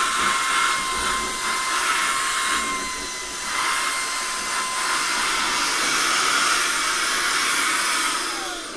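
Shark Ionflex cordless vacuum motor running with a steady whine over rushing air as it sucks lint through the narrow Lint Lizard hose, straining against the hose's heavy restriction. Near the end the motor winds down, its pitch falling.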